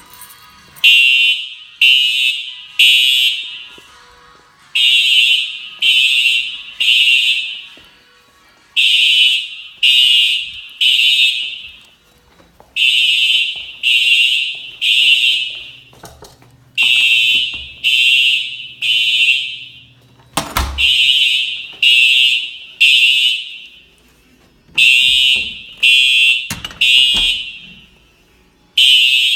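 Simplex fire alarm horns sounding in alarm, in the temporal-three evacuation pattern: three short, high blasts, a pause, then again, about every four seconds.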